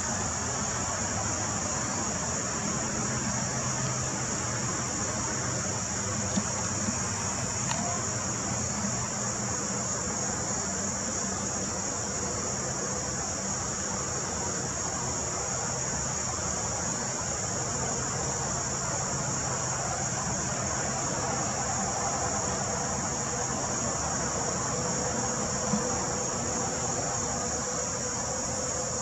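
A steady, high-pitched insect chorus, shrilling without a break over a low, even background noise, with a few faint clicks.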